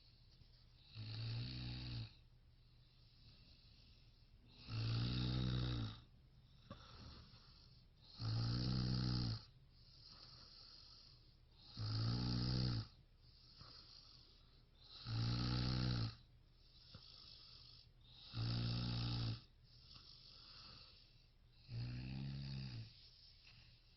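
A person snoring in a steady rhythm: seven snores, each about a second long, one every three and a half seconds or so, with faint breathing between them.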